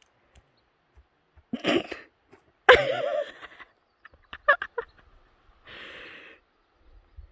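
A person making non-word vocal sounds: a breathy burst, then a louder voiced cry with a bending pitch about three seconds in, a few quick short voiced pulses, and a long soft breath out near the end.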